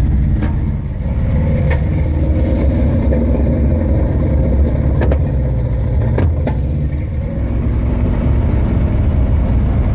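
Chevy Nova hot rod's engine running rough and loud after a hard cold start, with a few sharp pops through the exhaust; it is running badly, 'not happy at all'.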